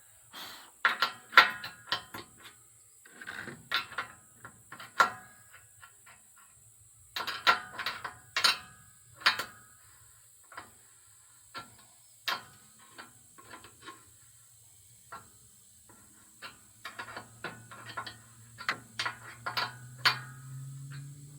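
Irregular sharp metal clanks and knocks, each with a brief ring, from work on the steel frame of a sawmill as it is leveled and its supports tightened. They come in clusters with quiet gaps. A low steady hum comes in near the end.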